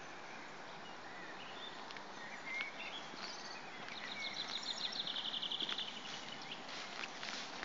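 Songbirds chirping over a steady background hiss, with one bird giving a fast trill about four seconds in that lasts around two seconds.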